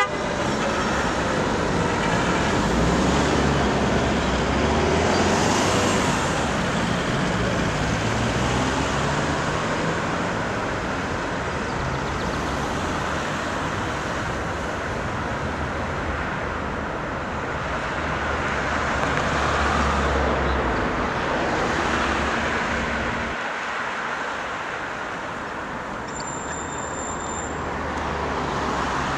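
City street traffic: a steady wash of passing vehicles, the engine and tyre rumble swelling and easing as they go by.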